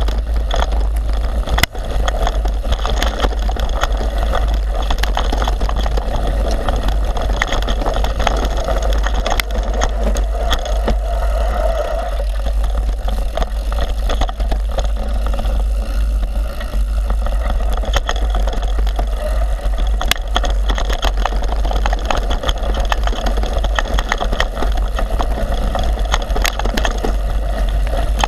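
Mountain bike riding down a dirt singletrack: wind buffeting the camera microphone as a steady low rumble, over tyre noise on the trail and frequent clicks and knocks from the bike rattling over roots and stones.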